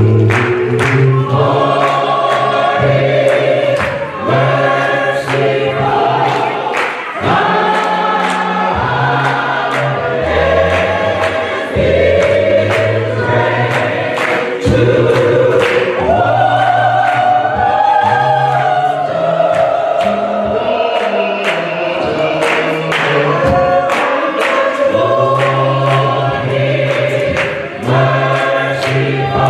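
Gospel choir singing with band accompaniment, a steady bass line and a regular drum beat.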